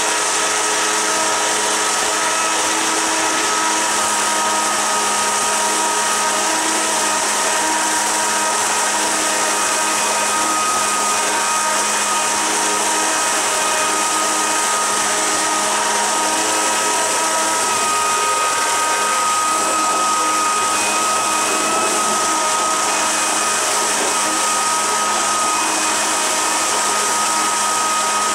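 Electric jet-drive unit for a jet surfboard running steadily at about half throttle: a constant motor-and-impeller whine over the hiss of its water jet churning into a bin.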